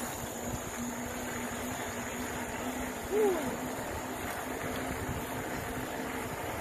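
Wind and road noise on the microphone of a camera carried by a cyclist while riding, with a steady low hum under it. About three seconds in, a brief call rises and then falls in pitch.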